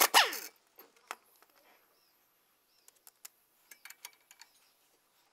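Hand tools working on car suspension bolts: a loud, short squeak that falls in pitch at the start, then scattered light metallic clicks and taps.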